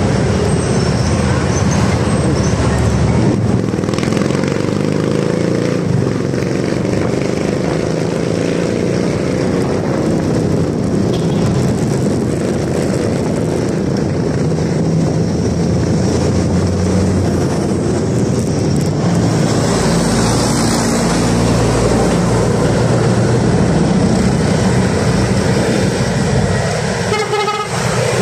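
Motorcycle riding in city traffic: its engine running steadily under a wash of wind and road noise.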